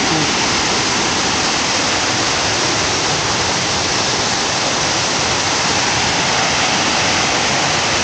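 Waterfall rushing: a loud, steady, unbroken noise of fast-falling water.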